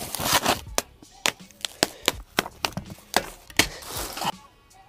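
Foam padding and plastic wrap being pulled off a bicycle frame: rustling broken by many irregular sharp snaps and taps, with a short lull near the end.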